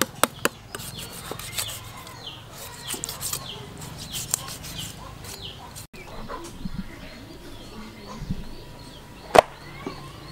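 A kitchen knife cuts and scrapes through a raw goat carcass, with scattered sharp clicks early on and one sharp knock near the end. Birds chirp in the background with short, falling calls.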